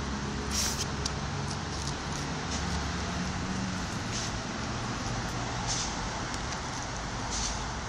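Steady background hum of distant road traffic, with a few faint short scuffs over it.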